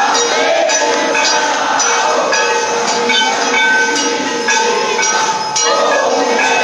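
Temple aarti: many bells and cymbals clanging rapidly and without a break over a steady ringing drone.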